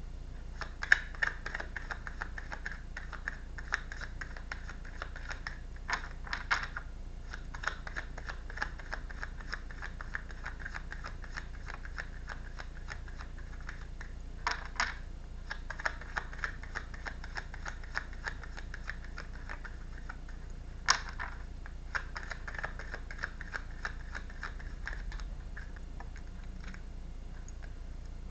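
Tarot cards being shuffled by hand: a quick, continuous run of soft papery clicks and flicks, with a few louder sharp snaps.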